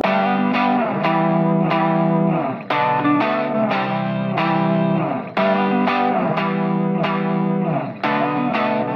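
Background music: a guitar playing notes and chords in a steady rhythm.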